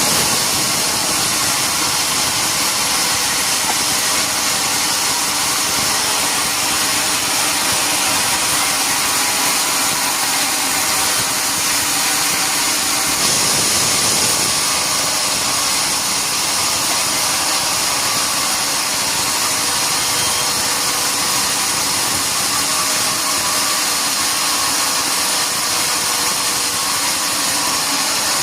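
Sawmill saw running steadily through wood, a continuous noisy whir, swelling briefly about halfway through.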